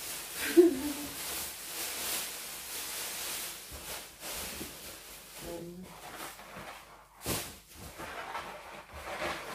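Latex balloons rubbing and squeaking against one another as they are handled and pushed into a balloon garland. There is a sharp knock about seven seconds in.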